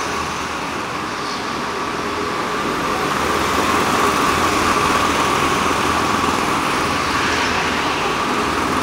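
Several go-kart engines running as the karts race around an indoor track, a steady drone that grows a little louder about three seconds in.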